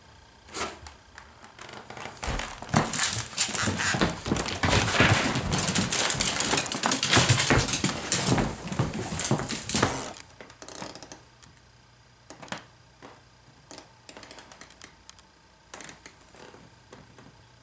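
Beagle's claws clicking and scrabbling on a hard floor as it runs about, with knocks and thumps. The dense clatter eases after about ten seconds into scattered taps.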